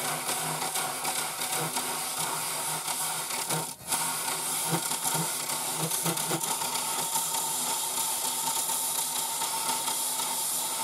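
A gouge cutting the inside of a spalted maple bowl spinning on a lathe, making a steady hiss of wood being shaved over the lathe's motor hum. The sound breaks off for a moment a little under four seconds in.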